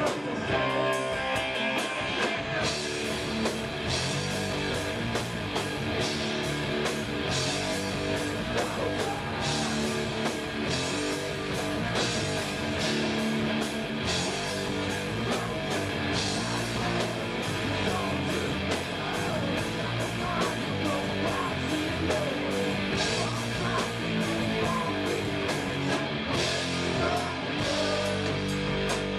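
A rock band playing live: electric guitars, a bass guitar and a drum kit going together at a steady driving beat.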